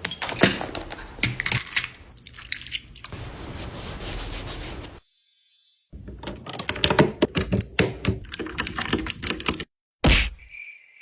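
Handling of skincare products: fast runs of small clicks and taps, like fingernails and lids on plastic containers, broken by abrupt cuts between clips. A thin steady high tone comes in near the end.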